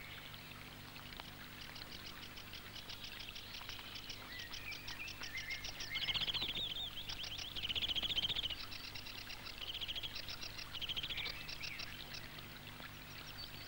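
Small birds singing: repeated fast high trills and warbling phrases, the loudest phrases about six and eight seconds in, over a faint steady low hum.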